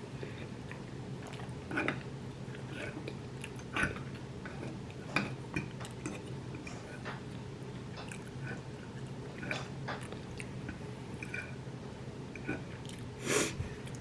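Person chewing and eating a soft tofu enchilada, with scattered small mouth smacks and clicks, one louder near the end, over a steady low hum.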